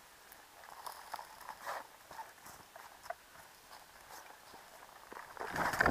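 Faint, scattered footsteps and rustling of someone walking slowly through dry grass and brush, with soft ticks and crackles. The noise swells near the end.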